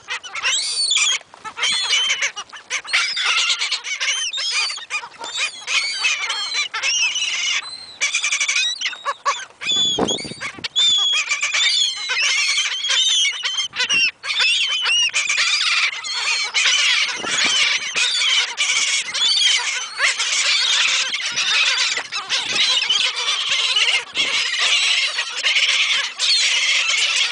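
A flock of seagulls calling loudly, many short, high cries overlapping without a break.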